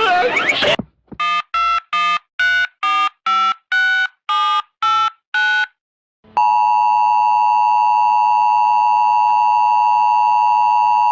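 A rapid series of about a dozen short electronic beeps of slightly varying pitch. After a brief gap, about six seconds in, a steady, loud two-tone Emergency Alert System attention signal begins and holds without change. A brief rising burst of sound from the previous clip cuts off at the very start.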